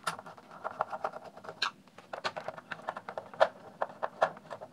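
A hand screwdriver backing small screws out of a plastic speaker housing: a run of irregular small clicks and scratchy ticks.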